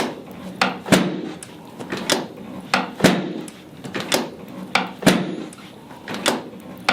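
A chiropractic drop table's pelvic section being set and dropped again and again in a sacral adjustment: a steady run of sharp clacks about two a second, with a heavier thud roughly every two seconds.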